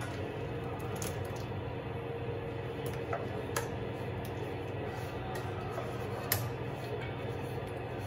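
Thick green gram (pesarattu) dosa batter sliding out of a steel mixer-grinder jar into a steel bowl with soft squishing, and a few light clicks, over a steady low hum.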